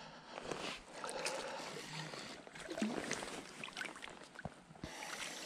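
Water splashing and sloshing unevenly as a hooked bream thrashes at the surface while being drawn in to the bank.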